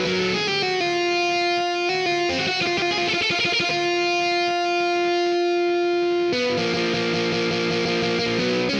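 GarageBand's Hard Rock virtual electric guitar, played on an iPad through overdrive and flanger pedal effects. It slides down in pitch, then holds one long note that wavers for a moment in the middle, and changes to lower notes about six seconds in.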